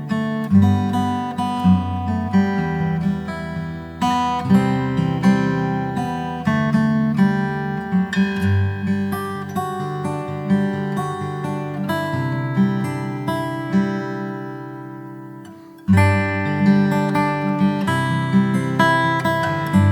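Background music of strummed acoustic guitar with a steady rhythm, fading down and starting again near the end.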